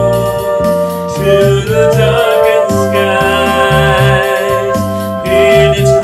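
Small home-recorded ensemble playing a soft rock song: a man singing held notes, layered flute parts, electric bass and electronic keyboard.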